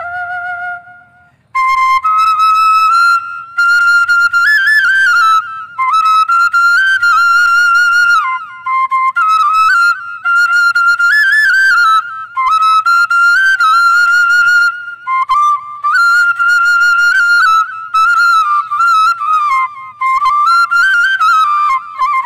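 Solo bamboo transverse flute (bansuri) playing a Bhawaiya folk melody with quick ornamental turns. It plays in phrases of a few seconds broken by short breath pauses, and is softer at first, then louder from about a second and a half in.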